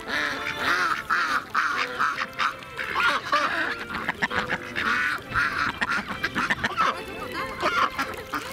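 Mallards quacking, several birds calling over one another in quick, repeated bursts.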